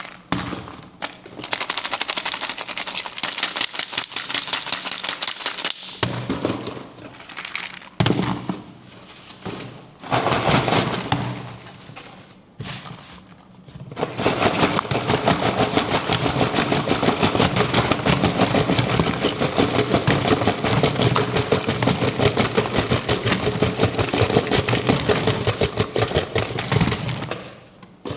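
Crinkling and crackling of candy and toy wrappers being unwrapped by hand, coming in bursts with short pauses and then continuing without a break for most of the second half.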